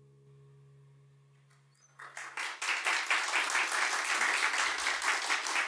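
The last note of a song fades away, then about two seconds in an audience breaks into applause that carries on steadily.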